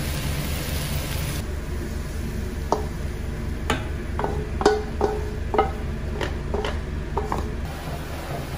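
Rice vermicelli stir-frying in a wok: sizzling near the start, then a wooden spatula tossing the noodles and knocking against the wok about ten times, each knock ringing briefly, over a steady low hum.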